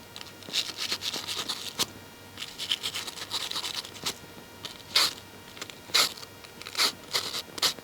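Foley effect being performed live: dry scratching and rubbing strokes, a quick run of them for the first few seconds, then single strokes about once a second.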